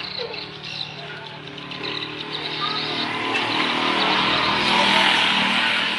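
A motor vehicle's engine and road noise, swelling to a peak about five seconds in and then easing off, over a steady low hum.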